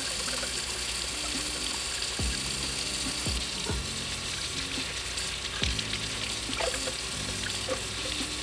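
Kitchen tap running steadily, the stream splashing onto a plastic Dyson V15 brush attachment as hands rub it clean under the water. Soft background music with low beats underneath.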